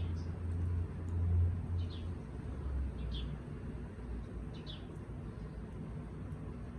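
A bird's short high chirps, repeated about every one to one and a half seconds, over a low rumble that is loudest in the first two seconds.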